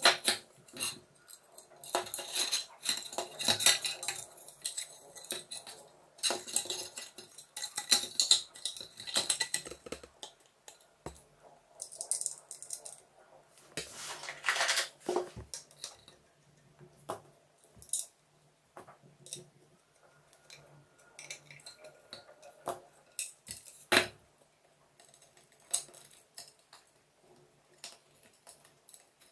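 Small plastic exhaust-fan parts being handled: irregular clicks, taps and scraping of plastic, with one sharper knock near the end.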